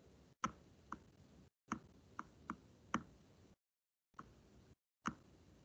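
Computer mouse clicking, about eight short, sharp clicks, some in quick pairs. The low background drops out to dead silence between some of them.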